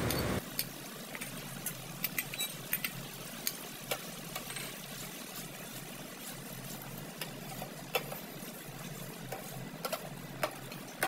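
Thick chili and tomato sauce sizzling in a pan while a wooden spatula stirs it, with scattered clicks and pops.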